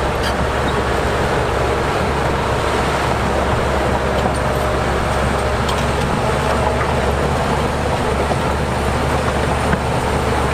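Heavy diesel engine of earthmoving machinery running steadily with a deep, even drone.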